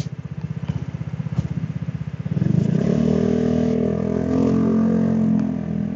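Scooter engine idling with an even, rapid putter, then opening up about two and a half seconds in as the scooter pulls away, louder and rising in pitch before easing slightly near the end.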